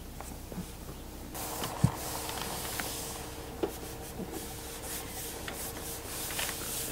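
Hands rubbing and pressing across the face of a flexible solar panel, smoothing it onto its butyl adhesive backing to work the air out from underneath. The rubbing is a steady hiss that starts about a second in, with a few small taps and a faint steady hum underneath.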